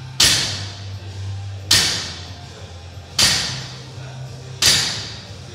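Four heavy impacts of gym equipment in a steady workout rhythm, one about every second and a half, each ringing briefly in the hall.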